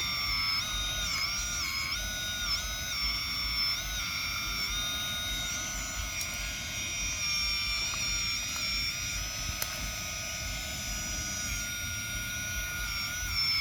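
Hydraulic pump of an RC excavator whining steadily at high pitch, its pitch dipping briefly several times in the first few seconds as the hydraulic valves load it.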